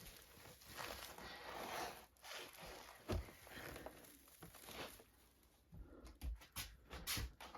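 Handling noise of a large bag of potatoes being shifted onto a scale: rustling, then a knock about three seconds in and a run of short knocks and clicks near the end.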